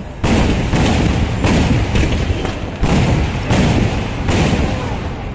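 Kerala temple fireworks: about five heavy blasts going off in quick succession, roughly one a second, each with a deep rumbling echo after it.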